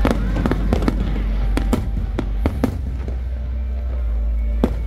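Aerial firework shells bursting in quick, irregular succession: a string of sharp bangs and crackles over a steady low rumble, with the loudest bang near the end.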